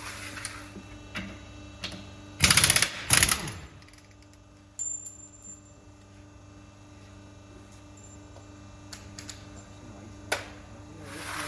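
Impact wrench hammering in two short bursts about two and a half seconds in, over a steady low machine hum, with a few lighter knocks of tools on metal.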